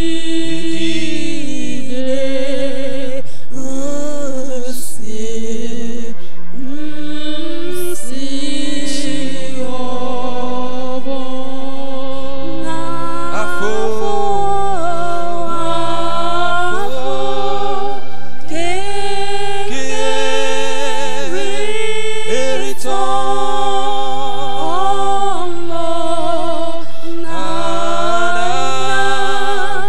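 A man singing a slow gospel worship song into a microphone, his voice gliding between long held notes, over sustained low accompaniment chords; a deeper bass note joins for several seconds around the middle.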